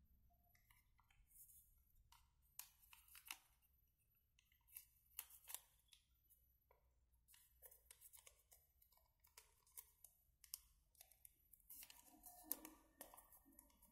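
Faint crinkling and rustling of a sheet of paper being folded and creased by hand: a string of short, crisp crackles at irregular intervals.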